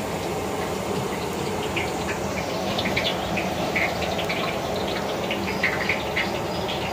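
Cooking fat squeezed from plastic pouches into a large iron karahi over a stove, with a steady rushing noise and scattered small crackles and pops.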